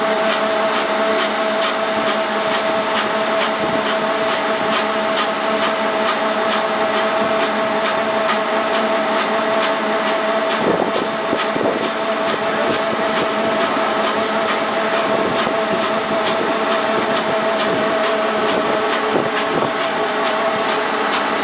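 Hensley Super Auger on a bulk feed trailer running as it unloads feed up into a farm bin: a steady mechanical drone with a constant whine. There are a couple of soft knocks about halfway through.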